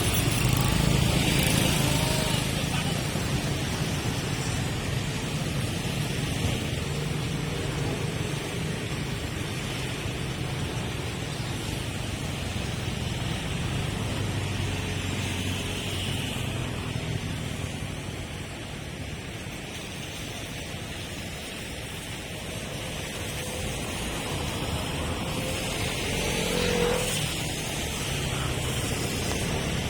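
Street traffic: cars and motorcycles passing, with a steady mix of engine hum and tyre noise. Louder passes come about a second in and again near the end.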